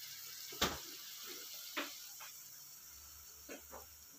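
A flour-battered piece sizzling gently in hot oil in a frying pan, a steady faint hiss. A few sharp clicks and taps sound over it, the loudest about half a second in.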